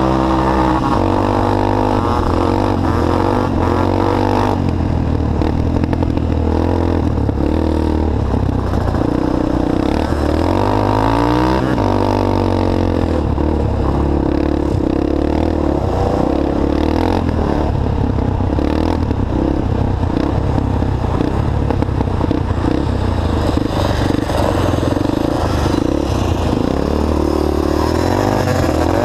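ATC three-wheeler's engine heard close up from the rider's seat, running hard and revving up and falling back repeatedly as the throttle is worked through the corners, with a sharp drop in pitch about twelve seconds in.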